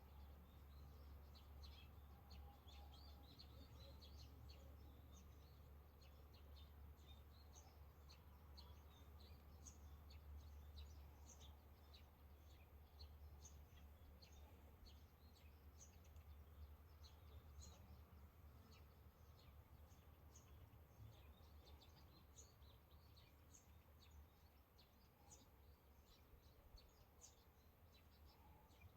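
Near silence: faint outdoor ambience with many short, high chirps scattered throughout, over a low steady hum.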